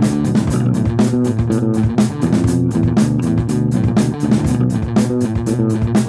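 Rock music: guitar and bass guitar playing over a steady drum beat with cymbal strokes.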